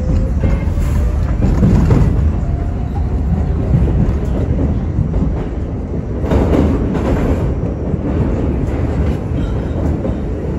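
R68 subway car heard from inside while under way: a steady rumble of wheels on rail, with the traction motors' whine rising in pitch over the first couple of seconds as the train gathers speed out of a station. A louder rattle of wheels on track comes about six seconds in.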